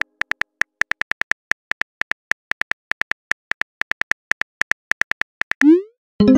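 Simulated phone-keyboard typing clicks, a quick irregular run of sharp taps about six a second. Near the end a short rising whoosh sounds as the message is sent.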